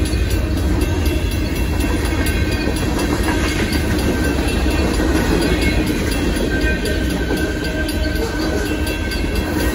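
Freight cars of a Union Pacific manifest train rolling past at track level: a steady heavy rumble of steel wheels on the rails with a clatter of wheels over the joints.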